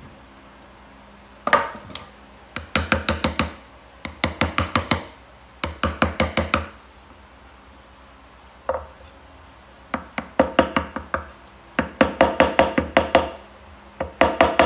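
Background music of quick, evenly spaced percussive strikes in short bursts with pauses between.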